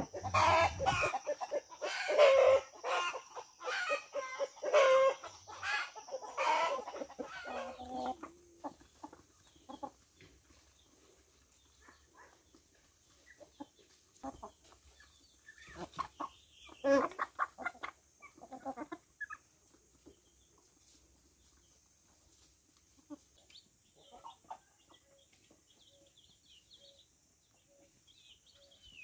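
Domestic chickens clucking in quick repeated calls, loud for the first several seconds and again in a burst a little past the middle. Near the end, chicks peep faintly while a hen gives soft, evenly spaced clucks.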